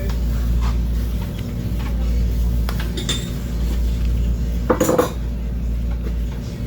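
Metal objects clinking and clattering as they are handled, with a brief, louder clatter about five seconds in, over a steady low hum.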